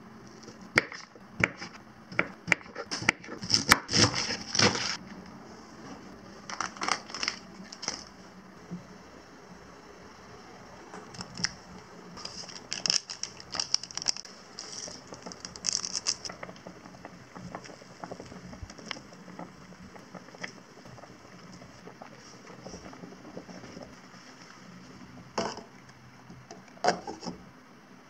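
Kitchen prep sounds: a knife tapping sharply on a wooden cutting board as meatballs are sliced, through the first few seconds, then bursts of crinkling and rustling as an instant-noodle seasoning packet is torn open and shaken out over a pot, with two knocks near the end.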